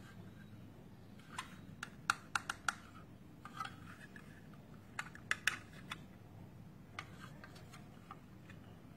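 Hard plastic building-block toy pieces clicking and knocking as they are handled and fitted together, in small clusters of sharp clicks with pauses between.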